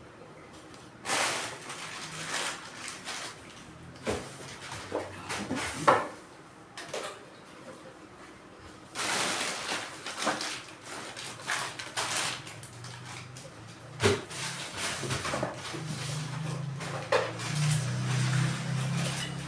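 Irregular clatter, clicks and rustling of equipment being handled. A low steady hum comes in about two-thirds of the way through and grows stronger.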